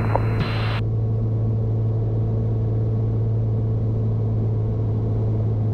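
Cessna 210's piston engine and propeller droning steadily in cruise on approach, heard in the cockpit audio; a hiss of the radio channel cuts off under a second in.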